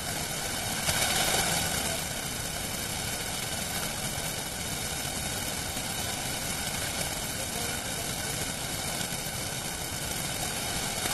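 Steady rushing roar of the Mahanadi in flood, fast muddy water running high. It swells a little louder for about a second near the start.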